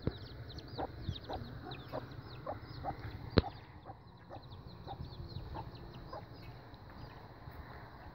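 Chickens clucking in a pen, with many short, high, falling peeps throughout; the clucks thin out after about six seconds. A sharp knock about three seconds in is the loudest sound, over a steady low rumble.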